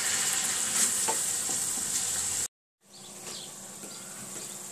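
Minced-meat and tomato-paste sauce sizzling in a stainless frying pan while a wooden spoon stirs it. The sizzle cuts off abruptly about halfway through, leaving only a faint, quiet background with a few small ticks.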